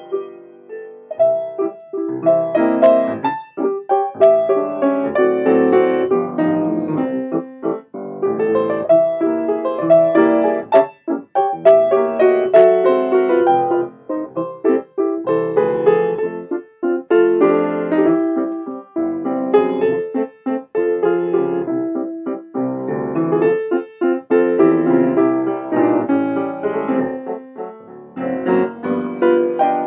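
Piano music: a continuous run of notes and chords, dropping briefly to near silence a few times between phrases.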